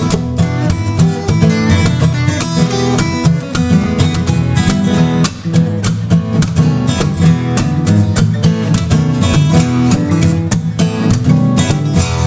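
Guitar improvising gospel blues, a dense, continuous run of plucked and strummed notes over a steady bass line.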